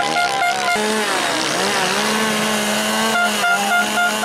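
Motocross dirt bike engines revving, their pitch rising and falling. A horn toots in quick repeated pulses at the start and again near the end.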